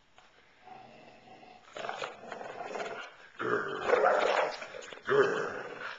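Dog growling in play while tugging on a rope toy, the growls building from faint to loud in rough bursts, loudest in the middle and again near the end.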